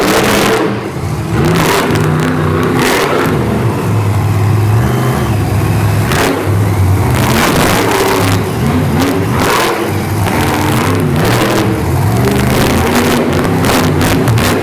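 Monster truck engines, supercharged methanol-burning V8s, revving hard again and again, the pitch rising and falling with each surge of the throttle.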